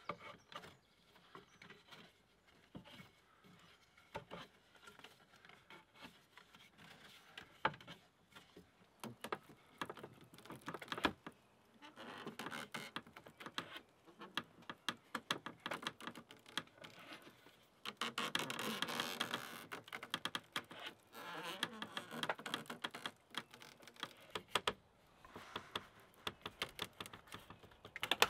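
Close handling sounds of lime bast rope and a log rafter being worked by hand: many light clicks and taps with rustling, and a denser stretch of rustling about two thirds of the way through.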